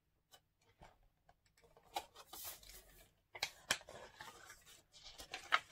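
Rustling paper and items being handled, such as a quilt book and packaging being moved about, with a few sharp clicks and taps among it, starting about two seconds in and loudest near the end.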